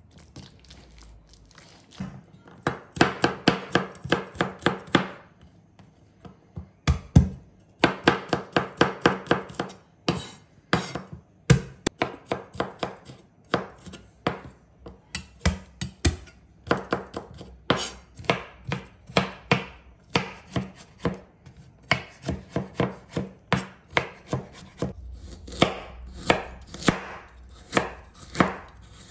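Chef's knife chopping on a bamboo cutting board, mincing garlic and slicing ginger. The strokes start about two seconds in, first in fast runs of about five a second, then as slower, more spaced cuts.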